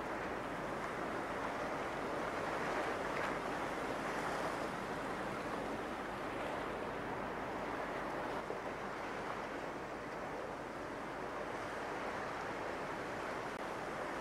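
Steady rushing, grinding noise of broken sea ice churning and scraping along a ship's hull as the ship breaks through thick sea ice, with a few faint knocks.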